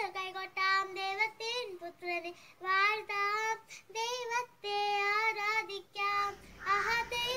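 A child singing a melody alone, in phrases with a wavering pitch. A faint low hum comes in about six seconds in.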